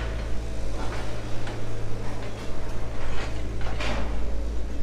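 Construction-site noise: a steady low rumble with a few faint knocks and clatters spread through it.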